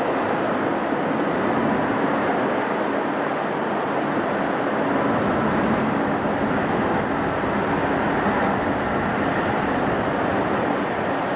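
Steady distant roar of airliner jet engines at taxi power, with no rise or fall.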